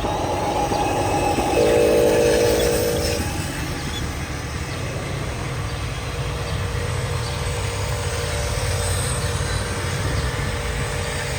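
Radio-controlled model trucks driving, a steady mechanical rumble. A held, several-toned note sounds over it from about one and a half to three seconds in.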